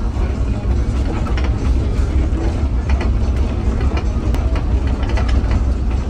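Inside a moving bus's cabin: a steady low rumble from the engine and the road, with frequent rattles and knocks from the body and fittings.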